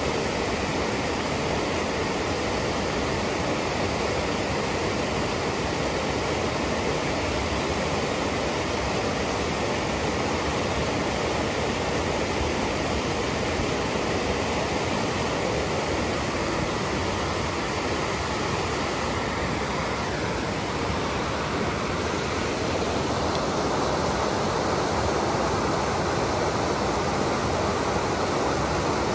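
Creek in heavy flow pouring over a low rocky cascade below stone culvert arches: a steady rush of falling white water.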